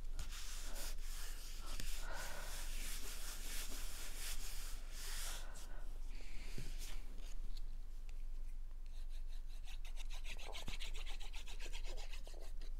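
Hands rubbing and pressing down on cardstock, paper scraping against paper on a work table. It comes in two spells of repeated strokes, the second with a faint rapid fluttering texture.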